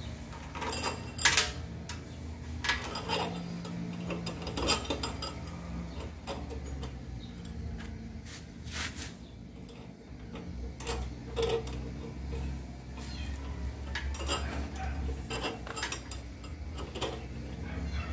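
A steel roller chain and hand tools clinking and rattling as the chain is worked onto the gearbox and axle sprockets. The clicks are irregular and scattered, over a faint steady low hum.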